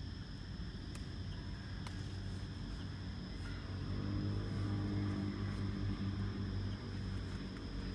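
A motor vehicle's engine hum passing on a nearby road, growing louder to a peak in the middle and easing off, over a steady high-pitched whine. Two sharp snaps about one and two seconds in, as cassava leaf stems are broken off by hand.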